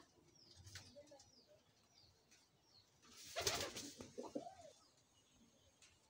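Domestic pigeons in a loft: faint scattered calls, then a short loud flurry of wing flaps about three seconds in, followed by a brief cooing call.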